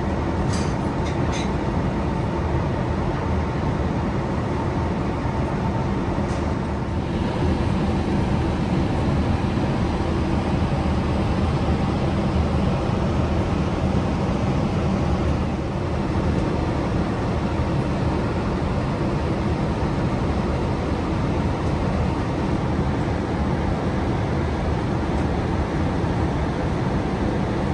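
Steady cabin noise of a Boeing 787-8 in cruise: an even, low rush of airflow and engines that doesn't change. A few light clicks about a second in.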